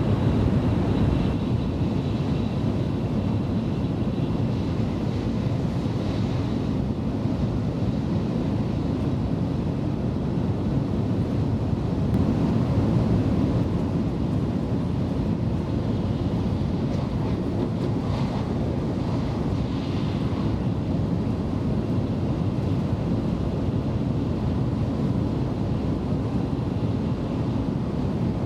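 Steady cabin noise of an N700S Shinkansen train running at speed, heard from inside the passenger car: an even, low rumble.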